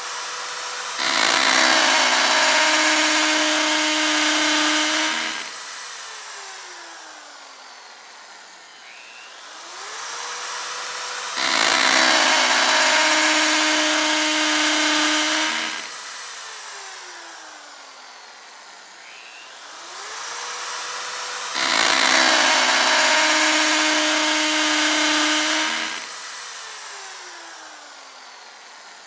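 Power drill spinning up with a rising whine, then drilling into material loudly for about four to five seconds, then winding down with a falling whine. The cycle repeats three times, about every ten seconds.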